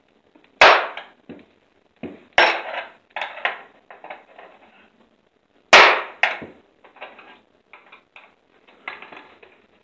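Hammer knocks on metal: three loud, sharp blows spread over about five seconds, with lighter taps between and after, as on an aluminum sliding-door track being worked into place.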